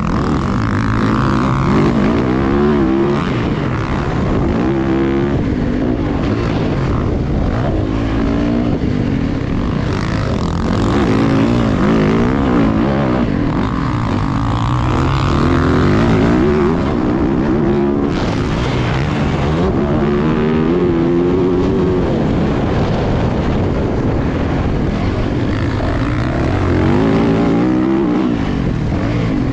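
Motocross bike engine revving hard, its pitch climbing and dropping every couple of seconds as the rider accelerates and rolls off through corners and jumps, over a steady rush of wind and track noise.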